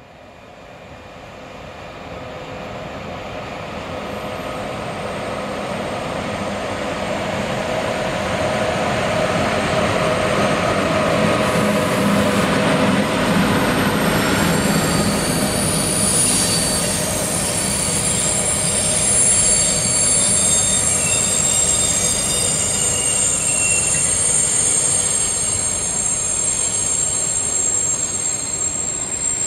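Passenger train rolling past on a near track: its rolling noise builds over the first ten seconds and then holds steady. From about halfway, high-pitched squealing from the wheels on the rails rises over the rumble.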